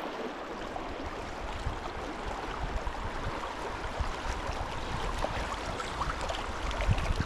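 Steady rush of a shallow, rocky trout stream flowing over riffles.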